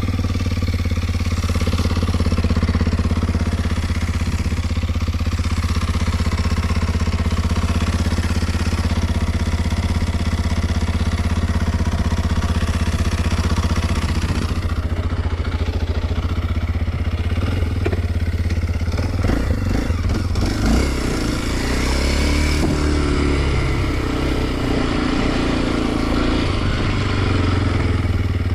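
Kawasaki KLX 230 SM's single-cylinder engine running at a steady idle. Its pitch wavers up and down for a few seconds about three quarters of the way through.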